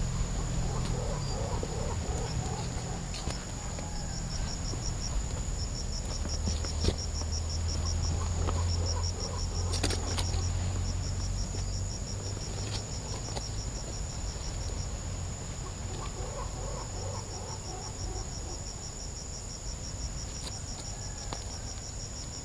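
Insects shrilling: a steady high-pitched drone, with a rapid pulsed chirping laid over it for several seconds and again near the end. Scattered light rustles and clicks come from someone creeping through dry undergrowth.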